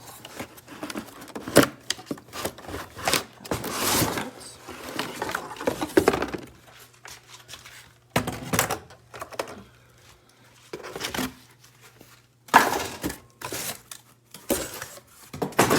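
Packaging and plastic vacuum parts being handled: irregular knocks, clatter and rustling, with a few sharper bangs.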